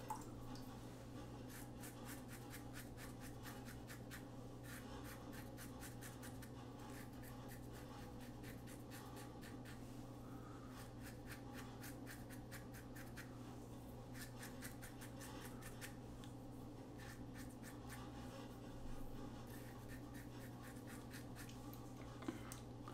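Single-edge injector razor scraping through lathered beard stubble on the chin: faint runs of quick rasping strokes, over a steady low hum.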